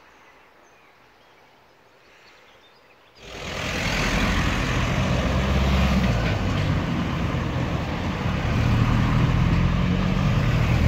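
Faint outdoor background at first. About three seconds in it cuts abruptly to loud road traffic close by: engines and tyres of a van and cars driving over the level crossing, with a deep engine rumble.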